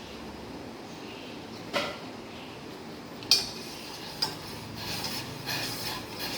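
A spoon clinks sharply against the metal pot of boiling dry-ginger coffee three times, about a second apart. Near the end come quicker scraping and small clinks as it stirs.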